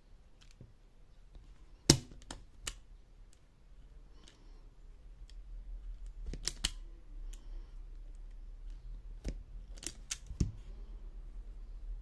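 INGCO automatic wire stripper clicking sharply as its spring-loaded jaws grip, cut and pull the insulation off a wire and then snap open. The loudest snap comes about two seconds in, and more clicks follow in small clusters around six to seven and nine to ten seconds, over a low rustle of hands on the tool.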